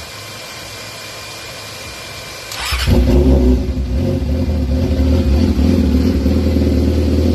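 Yamaha R6 inline-four engine through an SC-Project titanium exhaust, started about two and a half seconds in: it catches, flares briefly, then settles into a loud, steady idle.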